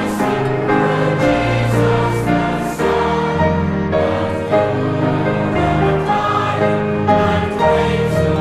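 Choral music: a choir singing slow, held chords over sustained bass notes that change every second or so.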